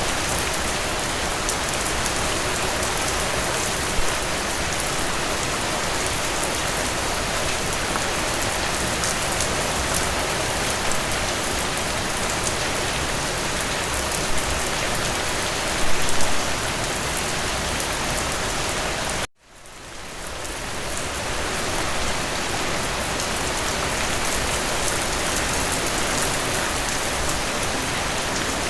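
Steady rain falling, a continuous hiss of drops with a few louder spatters. About two-thirds of the way through it cuts out abruptly and fades back in over a couple of seconds, an edit in the recording.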